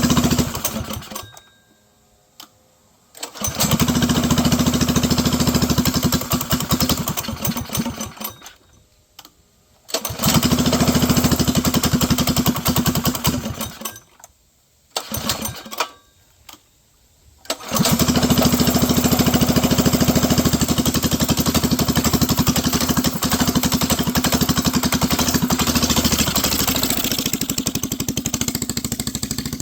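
Mini bike's small gasoline engine running in loud stretches that cut out suddenly to near silence and start again several times, two of the restarts lasting only a moment. From just past halfway it runs steadily, dropping to a lower, quieter speed near the end.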